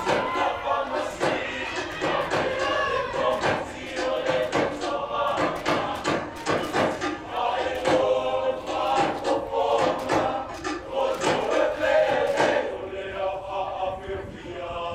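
Samoan group performance: many male voices singing and chanting together, with sharp claps and slaps in time. The group grows quieter near the end.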